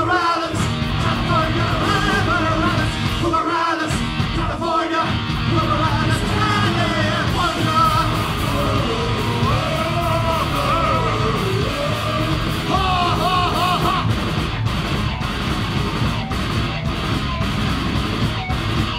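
Live heavy punk rock band playing electric guitar, bass guitar and drums, with a man yelling and singing the vocals over it.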